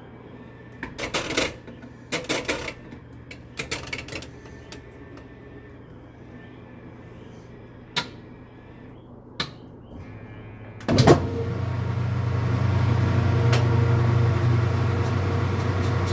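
Several clunks and clicks, then about eleven seconds in a household appliance's motor starts with a thump and runs with a steady hum.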